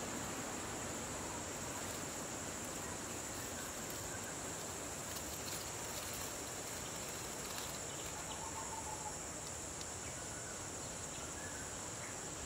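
Steady insect chorus, a continuous high-pitched trill, over a low even hiss.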